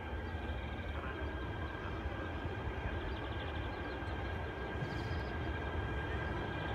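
Electric train approaching in the distance: a steady low rumble that grows slowly louder, with a steady high-pitched whine over it.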